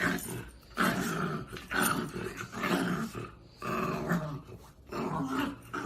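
A dog growling in a series of about five drawn-out bursts, one roughly every second.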